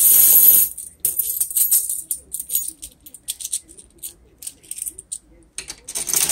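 Sengoku Otome pachislot machine sound effects during auto-play: a high hissing shimmer for under a second, then a scatter of sharp rattling clicks that grow sparser and fainter, until the machine's music starts again at the very end.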